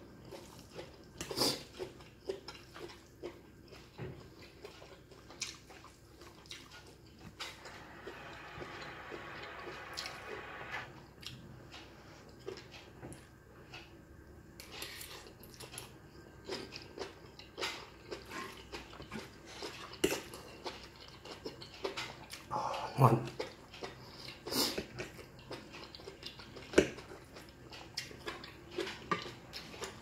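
Close-up chewing and mouth sounds of someone eating stir-fried glass noodles and seafood, with scattered light clicks of a metal fork against a ceramic plate. A louder knock comes about two-thirds of the way through.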